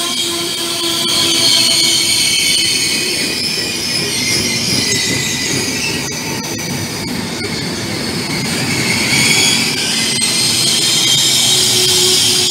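Passenger train coaches rolling past along a station platform: a steady rumble of wheels on rail with high-pitched wheel squeal over it.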